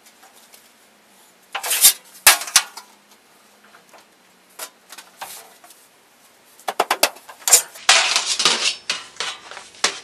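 Sheet metal clanking and rattling as it is worked in a sheet-metal bending brake and handled: a few sharp metallic clanks about two seconds in, some lighter clicks, then a dense run of clatter over the last few seconds.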